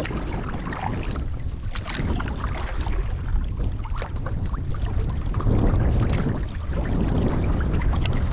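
Wind blowing hard across the microphone with a steady low rumble, over the irregular splashes and knocks of a canoe being paddled into the wind.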